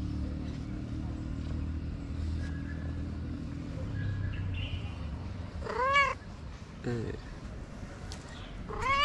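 Young tabby cat meowing: one clear meow about six seconds in, a short lower call a second later, and another meow starting right at the end. A low steady drone runs under the first five seconds, then fades.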